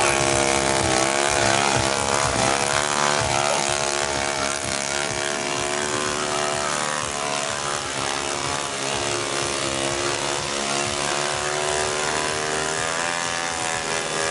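Small motorcycle engines held at high revs during a burnout, rear tyres spinning on the pavement. The engine note wavers up and down steadily, with a hissing tyre noise underneath.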